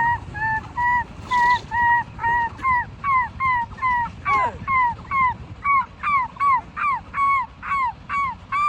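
An animal calling over and over: short, high, pitched calls, about two to three a second, each bending down in pitch at its end.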